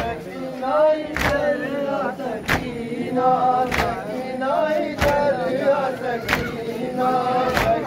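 A crowd of men chanting a noha in unison, with a sharp beat of matam (hands striking chests) about every second and a quarter.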